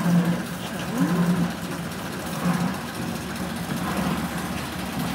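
Engine of a small narrow-gauge diesel locomotive running slowly as it approaches hauling coaches, a low note that swells and fades unevenly.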